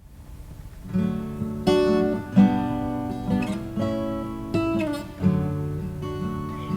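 Acoustic guitar intro to a song: chords strummed and plucked, a new chord struck about every half-second to second, starting about a second in.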